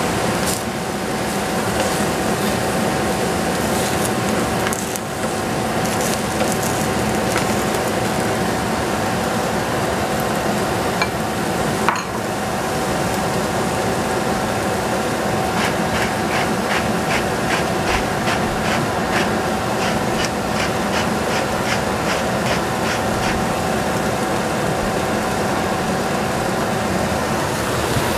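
Wooden spatula stirring and scraping vegetables in a stainless steel pot, with a rhythmic run of about two strokes a second in the second half, over a steady hiss and hum.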